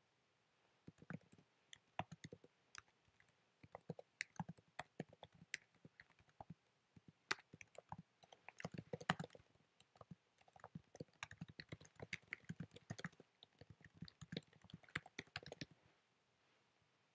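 Typing on a computer keyboard: irregular runs of quick keystroke clicks, starting about a second in and stopping shortly before the end.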